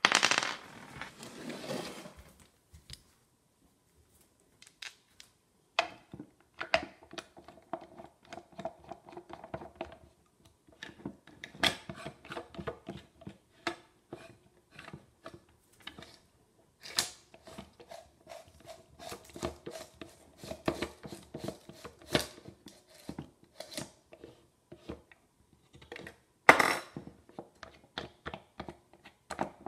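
A splash and clatter of about two seconds from a wet stainless steel bowl, then a long, irregular run of clicks, rattles and knocks from a Leitz Rondinax 35 film developing tank being loaded and worked by hand, with one louder knock near the end.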